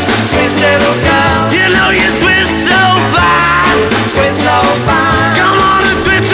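Rock music playing loudly, with a wavering lead melody over a steady bass.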